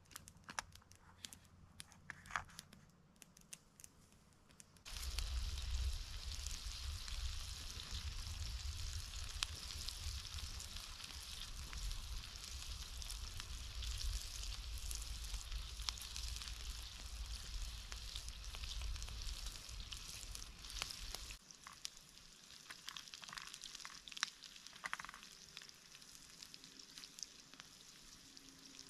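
Sliced green peppers and shallots sizzling in olive oil in a pan over a campfire. Quiet with scattered clicks for about the first five seconds, then a sudden loud, steady sizzle that drops back to a faint sizzle with a few ticks after about twenty seconds.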